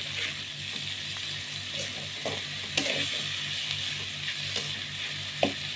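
Anchovy-and-chili sambal sizzling in a metal wok while a metal spatula stirs and scrapes it, with a few sharp clinks of the spatula against the pan.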